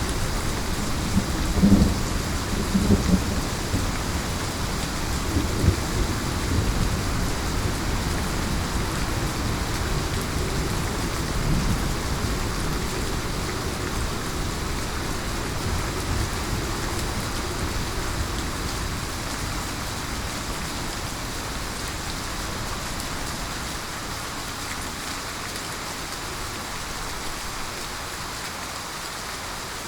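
Heavy rain falling steadily, with a roll of thunder rumbling in the first few seconds and slowly dying away.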